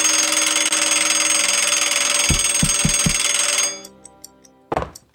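A loud bell ringing without a break for nearly four seconds, then cutting off suddenly. Four low thuds come about two seconds in, and a single knock follows near the end.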